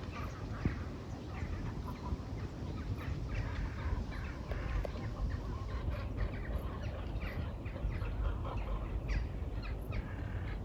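Many birds calling at once, short overlapping calls throughout, over a steady low rumble.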